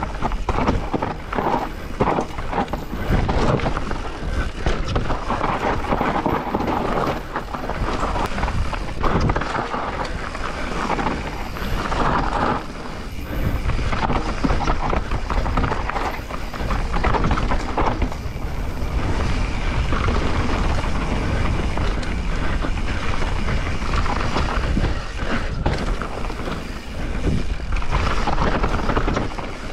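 Transition Spire 29er mountain bike descending a loose, rough trail: tyres rolling over dirt and rocks and the chain and frame rattling over many bumps, with continuous wind rush on the camera microphone.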